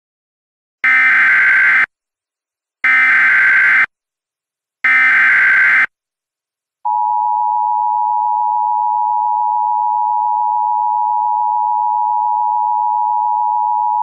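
Emergency Alert System tones: three one-second bursts of SAME digital header data, about a second apart, then, about seven seconds in, the steady two-tone EAS attention signal (853 and 960 Hz sounded together) begins and holds.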